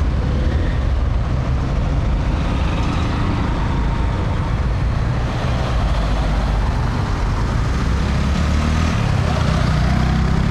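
City street traffic: a steady low rumble of motor vehicles' engines and tyres passing.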